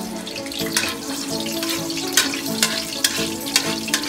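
Chopped garlic sizzling in hot oil in a wok, with the spatula knocking and scraping against the pan several times as it is stirred. Background music with held notes plays underneath.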